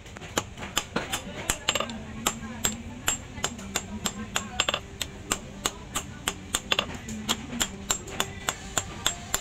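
Hammer forging a red-hot steel axe head on a post anvil: sharp blows in a steady rhythm, about two to three a second.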